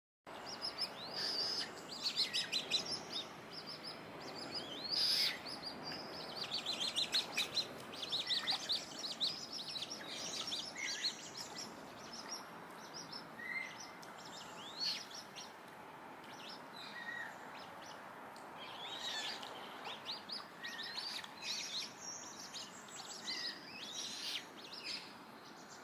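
Songbirds singing and chirping: many short calls and quick trills from several birds, over a steady background hiss.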